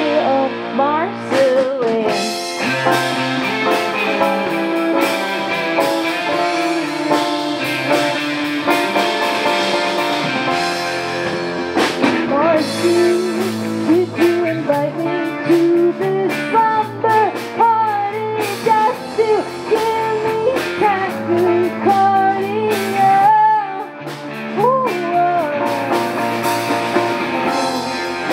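Live band playing a song on electric guitar and ukulele, with a woman singing.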